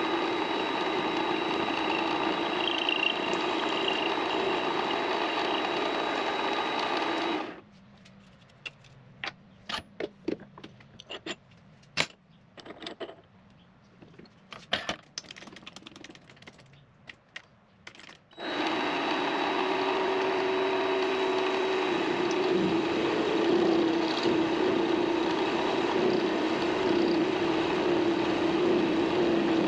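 Mini lathe running with a steady motor whine, then switched off about seven seconds in. There follows a stretch of scattered light clicks and knocks, and the lathe starts up again about eleven seconds later.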